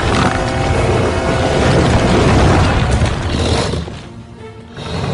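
Film soundtrack music with a loud, heavy booming crash and deep rumble that dies down about four seconds in.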